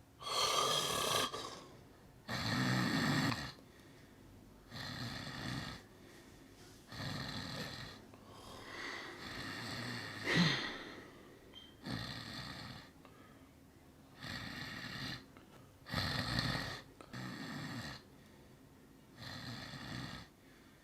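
A man snoring loud, one snore about every two seconds, each lasting roughly a second, with one longer, uneven snore near the middle.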